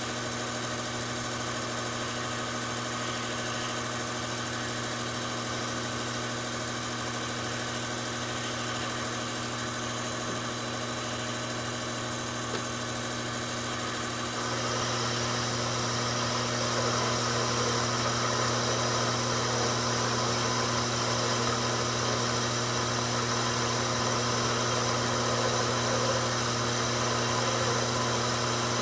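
Taig micro lathe running with a steady motor hum. About halfway through it gets louder and hissier as the tool turns the mild steel down.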